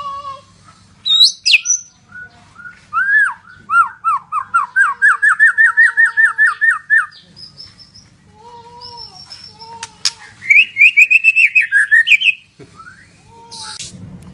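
White-rumped shama (murai batu, Medan type) singing a long, varied song of loud whistles and glides, with a run of quick repeated rising notes, about five a second, in the middle and a fast higher trill near the end.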